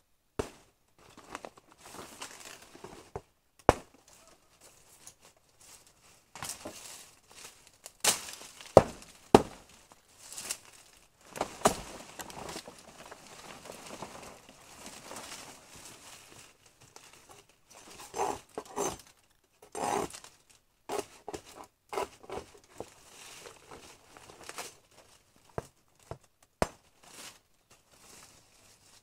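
Hand work with bamboo: irregular knocks and taps with crinkling, tearing rustles between them. The sharpest knocks come about nine seconds in, and a run of hollow knocks follows near the two-thirds mark.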